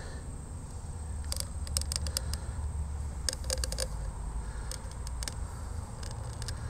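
Small metal pick scraping and clicking along the inside edge of a brass city-water inlet fitting, in three short runs of quick ticks, over a low steady rumble.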